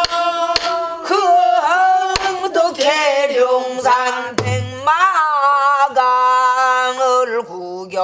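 A woman singing a Korean danga in the throaty pansori style, holding long, wavering notes. A few sharp strokes on a buk barrel drum keep the beat, one about four seconds in with a deep boom.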